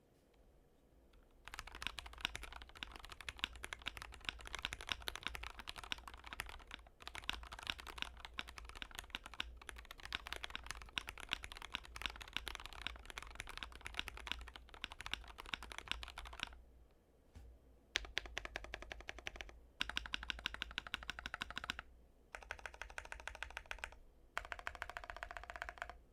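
Typing on a GMMK Pro mechanical keyboard fitted with lubed Everglide V3 Aqua King linear switches, a polycarbonate plate, foam and PBT cherry-profile keycaps. A long run of fast, continuous keystrokes is followed, after a brief pause, by several short bursts of rapid key presses near the end.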